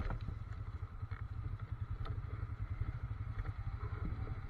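ATV engine idling with a steady low rumble, with a few faint clicks and rattles.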